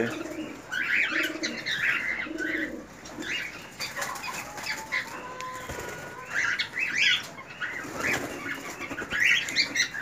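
A flock of cockatiels chirping and calling in short bursts, with wings fluttering now and then.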